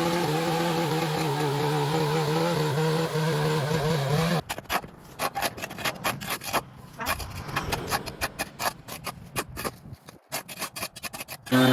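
A small engine running steadily with a wavering hum. About four seconds in it gives way abruptly to a stretch of irregular scraping and crackling.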